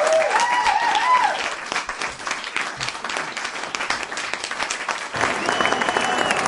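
A group of people clapping fast and continuously, with brief shouts over the clapping in the first second and a held high call near the end.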